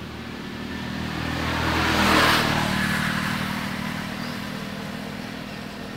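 A motor vehicle drives past, its engine and road noise building to a peak about two seconds in and then fading away.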